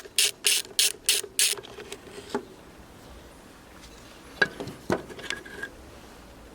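A ratchet clicking through quick strokes, about three a second, for a second and a half, then one more stroke and, a couple of seconds later, a few separate sharp clicks.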